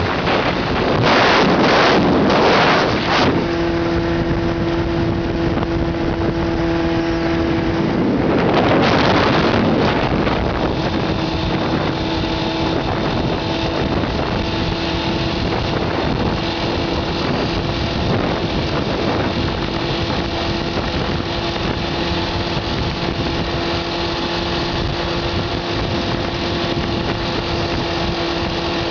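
Honda CBR600F4i's inline-four engine running at a steady speed under way, with wind rushing over the microphone. The wind noise swells louder twice, about a second in and again around nine seconds.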